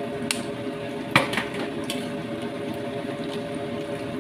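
A metal ladle knocking and scraping against a stainless-steel wok of boiling noodles: a few sharp clinks, the loudest about a second in, over a steady hiss.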